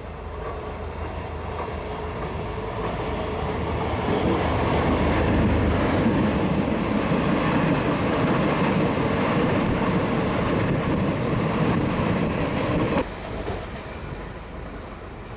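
Indian Railways diesel multiple unit (DEMU) train running past at close range: its rumble and wheel-on-rail noise grow as it approaches and stay loud while the cars go by. The sound drops suddenly about 13 s in to a quieter, more distant train running.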